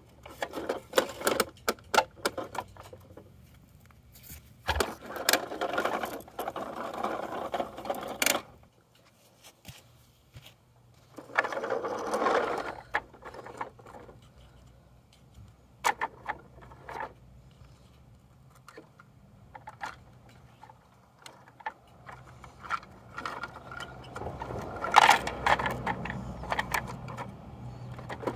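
Plastic toy garbage trucks being worked by hand: clicks and clatter of their lift arms and small plastic bins, with several short stretches of rattling mechanical noise.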